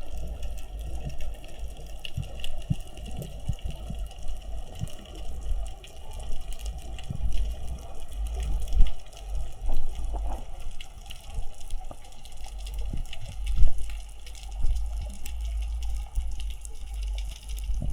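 Water sound picked up by a diver's camera in the sea: water rushing and gurgling, with a steady low rumble and many scattered clicks and knocks.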